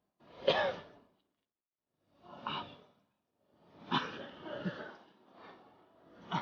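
A person's short non-speech vocal outbursts, about six in a row, irregularly spaced and each breaking off within half a second.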